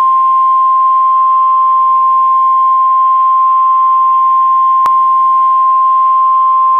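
NOAA Weather Radio warning alarm tone: a loud, steady single-pitched tone near 1 kHz (the 1050 Hz alert tone) announcing a tornado warning. A brief click about five seconds in.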